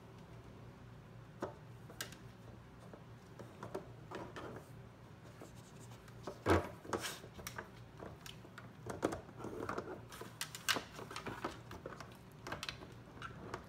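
Lidded plastic box of a Trixie Activity Poker Box dog puzzle being nosed and pushed by a dog across its plastic tray: scattered light knocks and scraping, with one louder knock about six and a half seconds in and quicker knocks in the second half.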